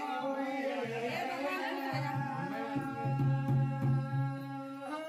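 Garhwali jagar music: a voice singing long held notes with a dhol drum beaten with a stick, the drum strokes coming in about three seconds in.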